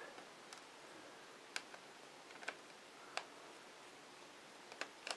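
Faint, irregular clicks and ticks of a small screwdriver working a screw out of the plastic underside of a Dell Inspiron 1420 laptop, about half a dozen in all.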